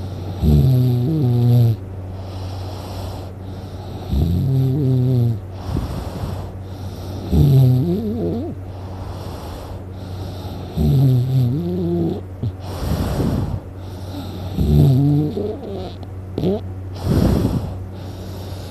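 A sleeping person snoring loudly: five rough, growling snores about every three and a half seconds, with breathy breaths in between.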